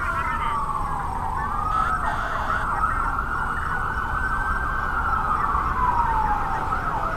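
A siren wailing slowly, its pitch sliding down, up, holding high, then down and up again, over a low rumble.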